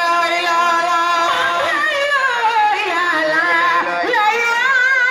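A man's solo voice singing a long, ornamented chant into a microphone, holding notes and sliding between them with a wavering pitch.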